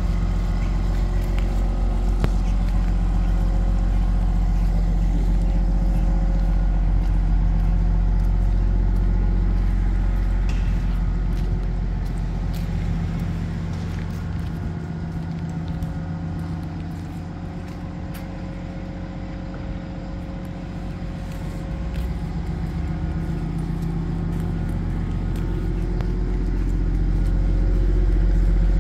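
Six-wheeled amphibious vehicle's engine idling steadily while parked. It grows quieter in the middle and louder again near the end, as the listening point moves away from the engine compartment at the rear and back.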